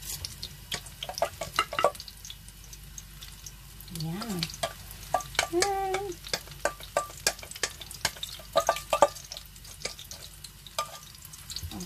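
Eggplant omelette sizzling in oil in a frying pan, with many sharp clicks and scrapes of a utensil working against the pan.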